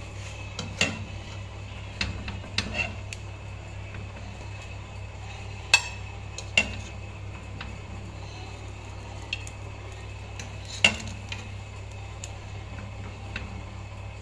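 Serving spoon clinking and scraping against a granite-coated cooking pot as biryani rice is scooped out, with a handful of sharp clinks at irregular intervals, the loudest about six and eleven seconds in, over a steady low hum.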